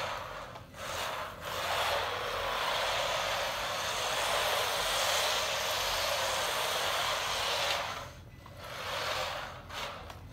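Kyosho Mini-Z AWD RC drift car running and sliding on a laminate floor: a steady scrubbing hiss of small drift tyres and electric drivetrain. It breaks briefly twice near the start and eases off near the end.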